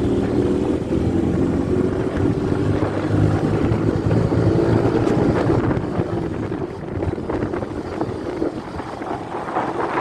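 A vehicle's engine running steadily while under way, with wind buffeting the microphone.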